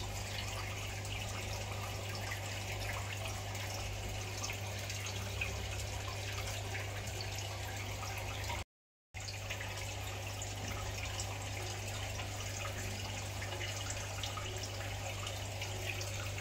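Steady trickling water noise over a constant low hum, broken by a moment of complete silence about nine seconds in.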